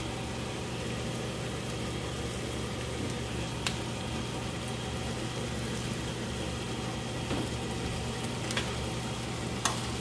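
Beef sirloin pieces and red bell pepper frying slowly over low heat in a nonstick pan, a steady sizzle over a low steady hum. A few sharp clicks come through, two of them near the end.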